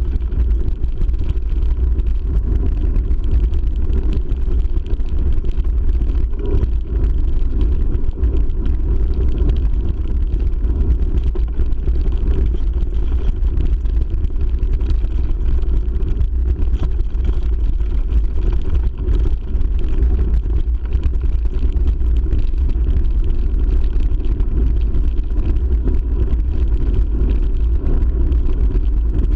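Mountain bike riding over a gravel track: a loud, steady low rumble of wind on the microphone mixed with the tyres rolling over the gravel.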